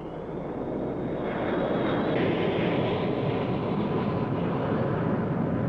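Jet aircraft engines growing louder over the first two seconds as the plane approaches, then running steadily, with a high thin whine in the first two seconds.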